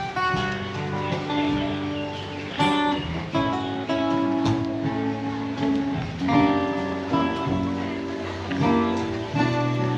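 Live laid-back music played on strummed acoustic guitar.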